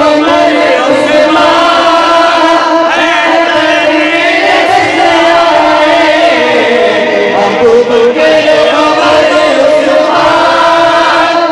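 A crowd of many voices chanting together in unison, led by a man's voice amplified over a loudspeaker, continuous and loud.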